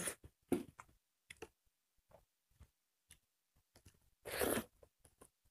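Eating sounds of people taking rice and curry by hand: scattered small mouth smacks and clicks, with one louder noisy sound lasting about half a second a little past four seconds in.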